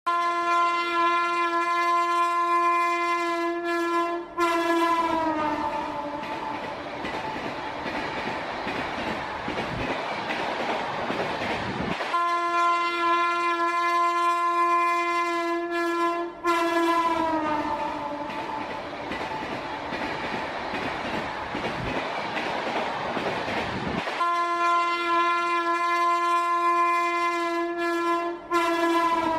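Train horn blowing a long steady blast, then a brief second blast that falls in pitch, followed by several seconds of the rushing noise of a train going by. The same sequence plays three times, about every twelve seconds.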